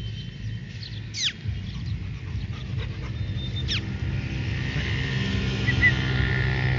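Puppies yelping: two sharp, high-pitched cries that fall steeply in pitch, about two and a half seconds apart, over a steady low rumble.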